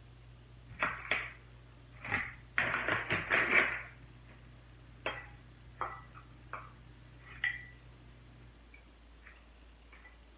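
Metal tongs clicking and clinking against a ceramic plate as smoked beef short ribs are lifted from crinkling butcher paper, with a short stretch of paper rustling about two and a half to four seconds in.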